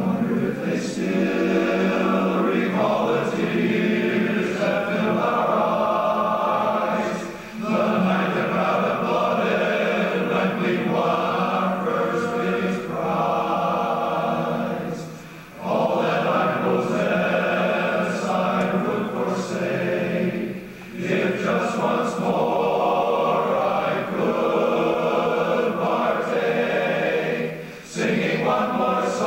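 Large male barbershop chorus singing a cappella in close four-part harmony, in sustained phrases with short breaks between them about every six to eight seconds.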